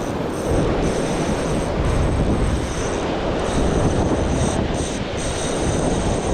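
Steady roar of wind buffeting the microphone and sea surf washing against rocks, with a faint high whine that comes and goes.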